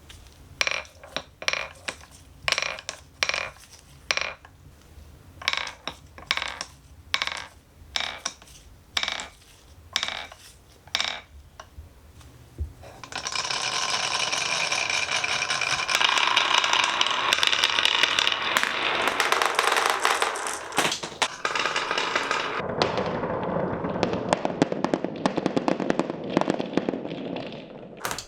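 Glass marbles on a wooden marble run: first a series of sharp, ringing clacks about every half second to second as marbles drop along the track, then, from about halfway, a long continuous rattling roll of marbles down wooden slopes, turning lower and duller a few seconds before it stops near the end.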